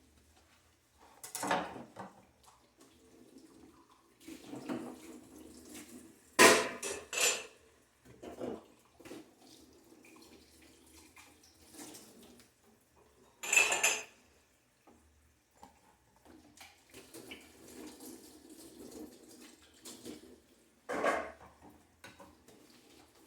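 Dishes, pans and cutlery clattering and clinking while a kitchen is being tidied: a handful of sharp knocks and clinks, the loudest about six and a half seconds in and again near fourteen seconds, with quieter handling noise between.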